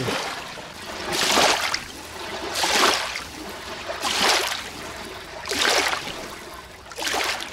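Water sloshing in five even swells, about one every second and a half.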